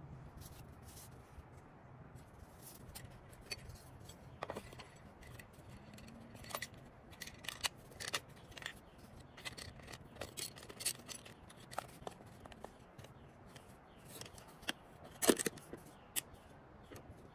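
Small pocket pochade box being handled: scattered light clicks, taps and scrapes as its panel holder and clamp knob are adjusted and the parts moved. About 15 seconds in the lid is shut with the loudest knock, and a sharp latch click follows.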